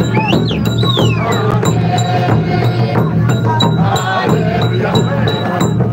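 Music with a quick, steady percussive beat and pitched melodic lines, likely voices.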